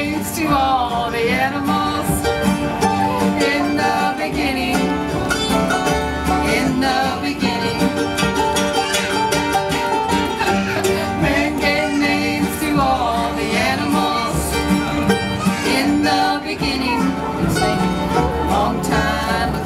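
A bluegrass band playing live: five-string banjo, mandolin, two acoustic guitars and upright bass, picked together at a steady, lively tempo.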